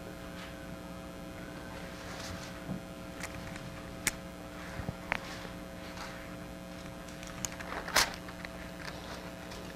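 Quiet room tone with a steady electrical hum, broken by a few soft rustles and short sharp clicks of Bible pages being turned; the loudest comes about eight seconds in.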